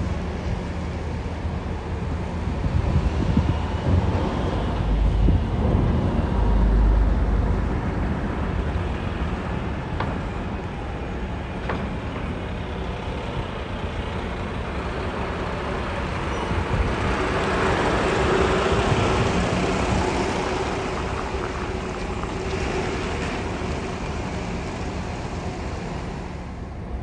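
Heavy trucks driving off a car ferry's loading ramp: diesel engines running and tyres on the ramp, with a deep low rumble early on, a couple of sharp knocks midway, and the loudest swell as a UD Trucks tractor unit passes close about two-thirds through.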